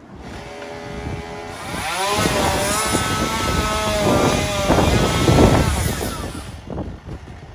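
An engine running and revving, its pitch bending up and down. It grows louder to a peak about five seconds in, then fades away.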